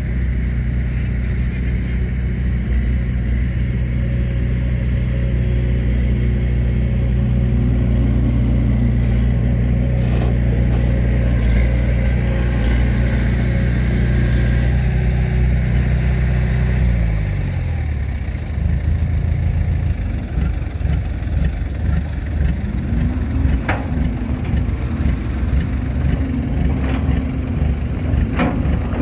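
Caterpillar hydraulic excavator's diesel engine working steadily while it digs, its note dropping about seventeen seconds in to a lower, rougher rumble, then a tone rising and holding again a few seconds later. A few sharp knocks stand out, around the middle and near the end.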